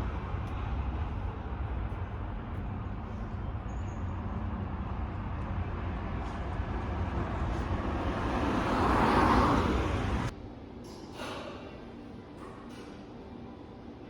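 Road traffic noise with a heavy low rumble. It swells as a vehicle passes close about nine seconds in, then cuts off abruptly to a quieter background with a few light clicks.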